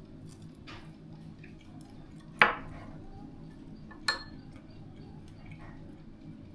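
Utensils and dishes clinking: two sharp clinks about a second and a half apart, with a few fainter ticks, over a low steady hum.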